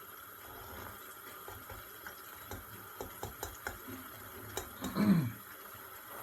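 Eggs and tomatoes cooking in a frying pan with a steady low hiss, and a run of small clicks of a utensil against the pan. About five seconds in comes the loudest sound, short and falling in pitch.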